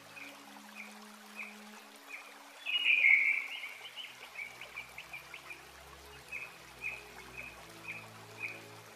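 Soft background music of held low notes, with a bird-like chirping that repeats about twice a second and a louder burst of chirping about three seconds in.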